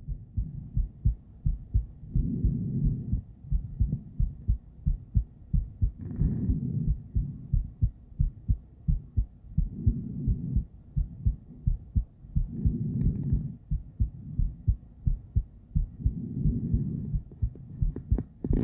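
A woman's heartbeat heard through a handheld ultrasonic Doppler device: a quick, regular train of low thumps. A broader whooshing swell of breathing rises and falls over it about every three to four seconds.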